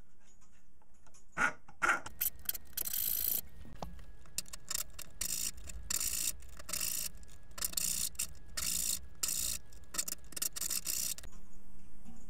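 Hand file rasping across the rim of a small brass clock wheel as its teeth are cut by hand: a quick series of short strokes, about two a second, starting about a second and a half in and stopping shortly before the end.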